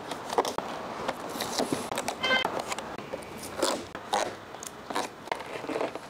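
Clear plastic blister packaging being handled and lifted off a tray, crinkling with irregular clicks and crackles.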